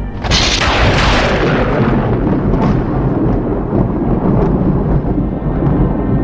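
A sudden loud crash, like a thunderclap or explosion sound effect, that dies away over a couple of seconds, with dark background music underneath.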